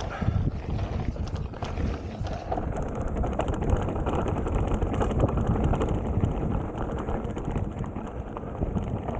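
Mountain bike rolling fast down a dirt and gravel trail: tyres crunching over the surface and the bike rattling and knocking over bumps, with wind rumbling on the helmet-mounted microphone.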